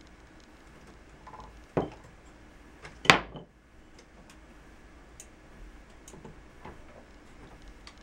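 Two wooden knocks about a second and a half apart, the second louder with a short rattle: a wooden dowel let go by a syringe-driven toy backhoe's claw striking the workbench. Faint light ticks from the mechanism otherwise.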